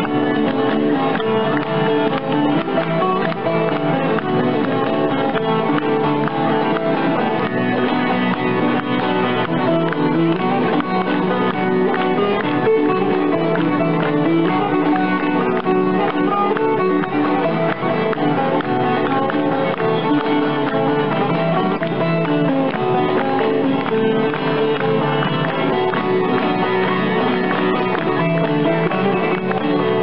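Instrumental music led by plucked string instruments, playing continuously at an even level.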